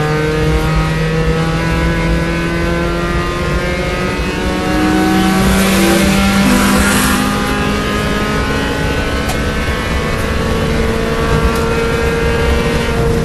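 Engine of a small four-cylinder B-Spec race car at full throttle, heard from inside the cabin, rising in pitch as the car accelerates down a straight, with a gear shift about halfway through. Near the end the engine note begins to fall as the driver lifts for the next corner.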